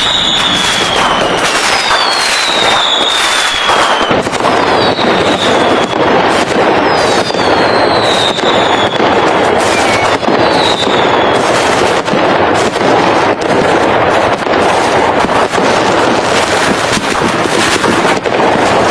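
Fireworks going off in a dense, continuous barrage of bangs and crackling. Several whistles fall in pitch during the first half.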